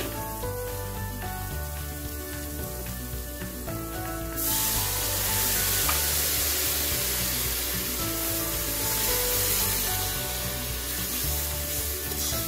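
Browned sun-dried onions and spice powders sizzling in hot oil in a pressure cooker pot while a spoon stirs them. About four seconds in, water goes into the hot pot and the sizzle jumps suddenly louder and hissier, and stays that way. Background music plays underneath.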